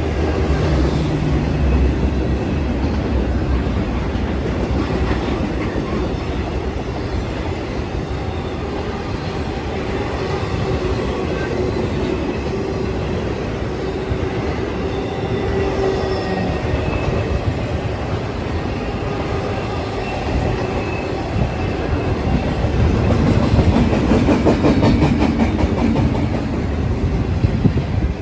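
BNSF intermodal freight train of trailer-carrying cars rolling steadily past, its wheels rumbling and clacking over the rail joints, with faint squealing tones from the wheels on the rail. The clacking grows louder and quicker near the end.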